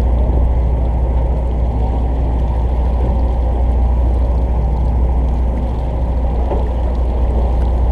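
Fishing boat's engine running with a steady, loud low drone, muffled and with little treble.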